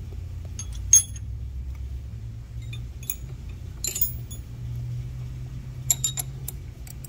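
Metal tooling clinking and tapping against the cast-iron cylinder head and its fixture as a pilot rod is handled and set into a valve guide hole: several sharp, ringing clinks, one about a second in, a few around the middle and a cluster near the end, over a low steady hum.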